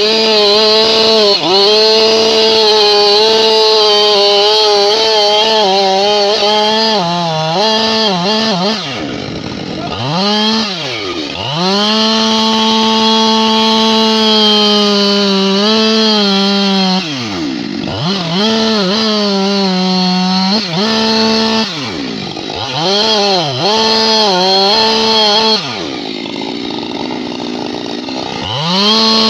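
Husqvarna two-stroke chainsaw running at high revs, its pitch sagging briefly under load while cutting. Several times the revs drop sharply and climb back as the throttle is let off and opened again.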